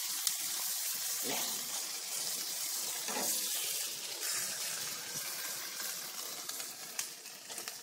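Chicken sizzling on a hot grill grate, a steady hiss, with a few light clicks as metal tongs turn the pieces.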